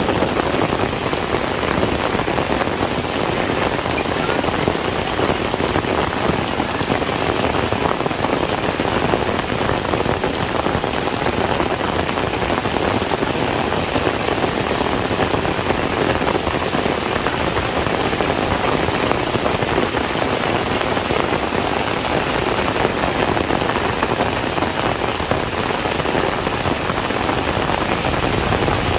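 Heavy rain falling steadily on a surface, a dense, even patter with no let-up.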